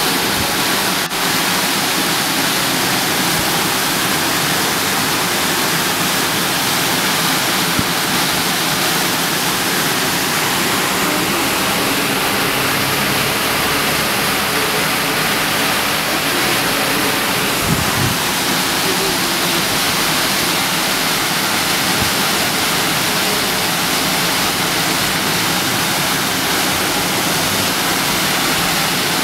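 Water gushing from a burst water main: a tall jet spraying up and falling back, with a steady, loud rushing noise.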